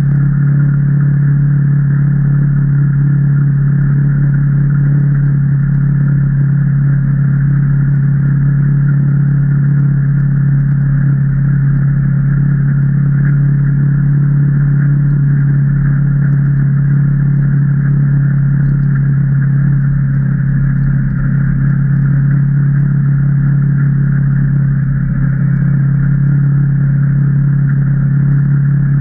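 Can-Am Maverick Trail 800 side-by-side's V-twin engine running at a steady speed, a loud, constant drone that holds one pitch throughout.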